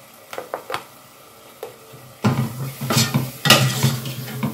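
A slotted steel spoon stirring and scraping frying onion-tomato masala in a stainless steel stockpot, with food sizzling. A few light clicks of spoon on pot in the first second, then from about two seconds in, steady scraping stirring strokes.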